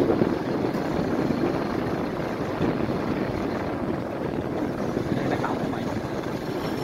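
Steady rumbling wind buffeting on the microphone mixed with a motorbike's engine running while riding along.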